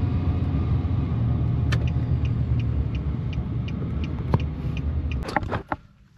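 Car driving on a wet road in rain, heard from inside the cabin: a steady low rumble of road and engine noise with a light, regular ticking about two or three times a second. The noise stops abruptly near the end.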